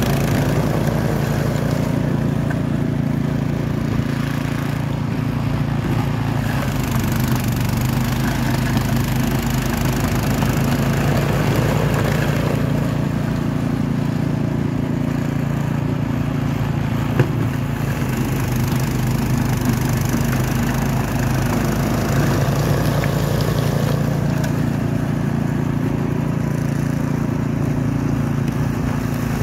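Craftsman 26-inch two-stage snowblower's 208cc engine running steadily while the auger and chute clear snow.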